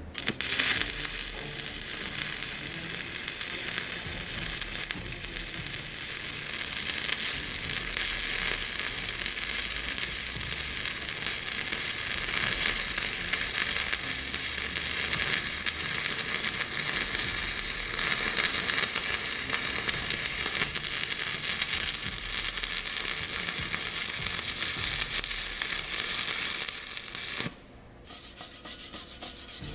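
Stick welding arc burning a 7018 rod onto steel plate: a steady crackling sizzle that strikes up right at the start and stops suddenly about two seconds before the end as the arc is broken.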